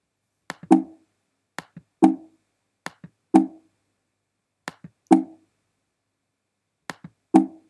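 Mouse clicks on on-screen buttons, heard five times at roughly one- to two-second intervals. Each is a sharp tick followed by a short pitched knock that dies away quickly.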